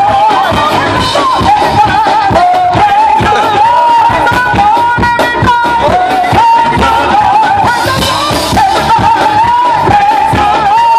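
Live gospel band playing: a lead voice carries a wavering melody over drums keeping a steady beat.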